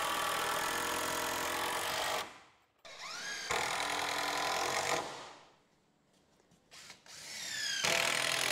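DeWalt 20V cordless drill/driver running in three bursts of about two seconds each, drilling into a wooden 2x4 nailer board. Each burst spins up with a rising whine and stops short.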